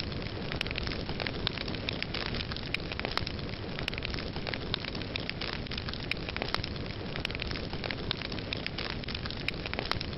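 Burning wood crackling: a steady rushing flame noise with frequent sharp, irregular crackles and pops.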